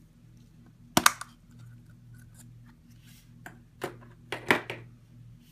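A plastic surprise egg snapped open with one sharp click about a second in, followed by a few smaller plastic clicks and knocks as the egg halves are handled.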